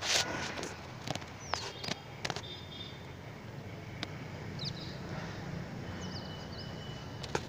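Outdoor ambience: a few short bird chirps over a steady low rumble, with scattered sharp clicks.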